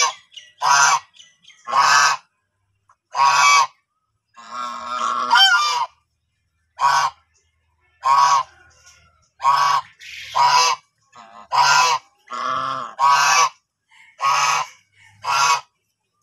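White domestic geese honking: a series of short, loud honks about one a second, with a longer, rougher run of calls and a rising honk a few seconds in.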